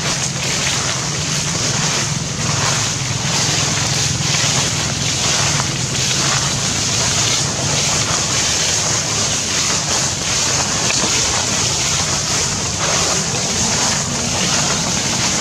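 Steady outdoor noise: wind on the microphone with a constant high hiss and a low hum underneath, and faint scattered rustles.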